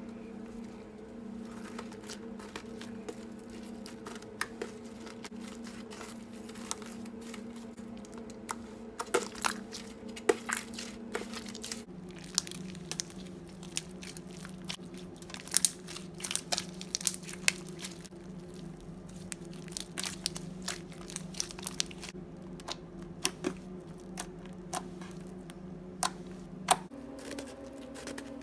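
Slime mixed with snow being squeezed and poked, giving irregular crackles, crunches and small sharp pops. A steady low hum runs underneath and shifts pitch abruptly twice.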